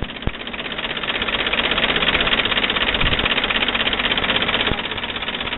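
Veteran four-cylinder car engine, its cylinders cast in pairs, running at idle with a fast, even mechanical clatter.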